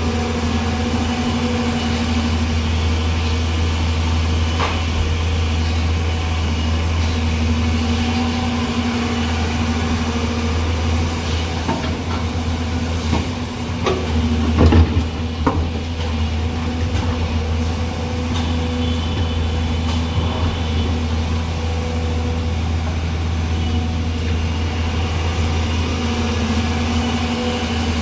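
Excavator's diesel engine running steadily, with a few sharp knocks and a brief swell in loudness about halfway through.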